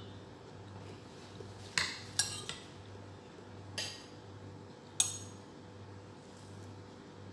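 A metal spoon clinking and scraping against a bowl while eating: several sharp clinks, three in quick succession about two seconds in and a louder one about five seconds in, over a faint steady low hum.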